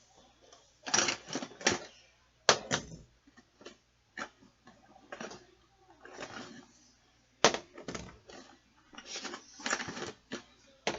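Fidget toys being handled and set down: an irregular run of short clicks and clatters, some in quick clusters.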